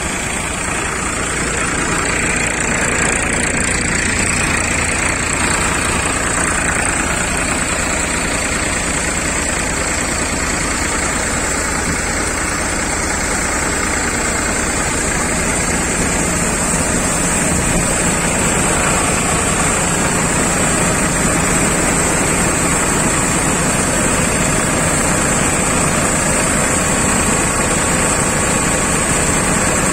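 Tractor-powered threshing machine running steadily: the Farmtrac tractor's diesel engine working under load to drive the thresher's drum and blower, with a continuous rushing of chaff being blown out.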